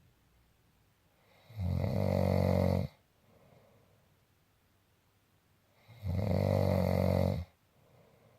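Snoring: two long snores about four seconds apart, each lasting over a second, with fainter breathing between them.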